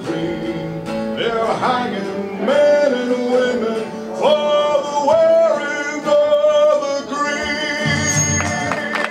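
A man singing a slow song into a microphone, amplified through a PA, with long held notes.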